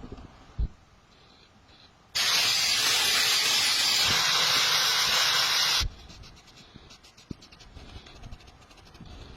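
A pressurised spray hissing steadily for about three and a half seconds, starting and stopping abruptly. A single short knock comes just before, and faint scratchy ticks after.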